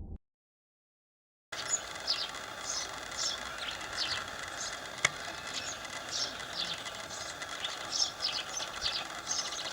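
After about a second and a half of dead silence, an outdoor background full of many short, high chirps scattered irregularly, with one sharp click about five seconds in.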